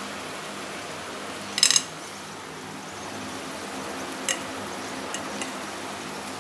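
Vegetables and rice frying in a stainless steel pot over a high gas flame with a steady low sizzle, broken by one sharp metal clatter about a second and a half in and a few light clinks later.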